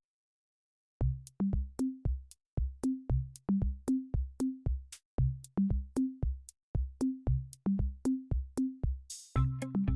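Background music: after about a second of silence, an electronic drum-machine beat of low kick and tom hits comes in, about two to three hits a second. Near the end a cymbal swell brings in a bass line and synth notes.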